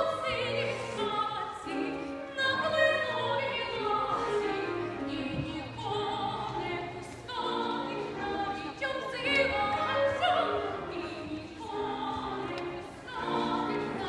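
Operatic singing in phrases over instrumental accompaniment, from a children's fairy-tale opera.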